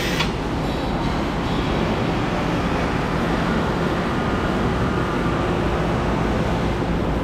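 Steady running noise of shop machinery: a continuous rush with a low rumble, with a sharp click right at the start.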